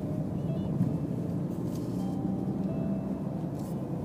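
Car engine running steadily with road and tyre rumble, heard from inside the cabin while driving.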